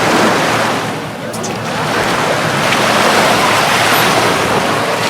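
Atlantic surf breaking and washing up the beach, with wind on the microphone. The rush dips about a second in, then builds again.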